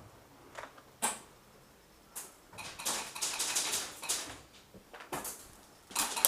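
Airsoft guns firing: a single sharp crack about a second in, then a fast clattering rattle of shots for about two seconds, and another rapid burst near the end.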